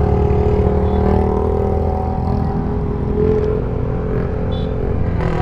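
Bajaj Dominar 400's single-cylinder engine running as the motorcycle rides along the road.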